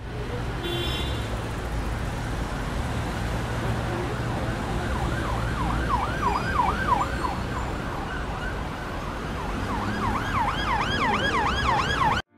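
Street traffic ambience, a steady low rumble, with an emergency vehicle siren yelping in fast rising-and-falling sweeps, about three a second, in two spells; everything cuts off abruptly near the end.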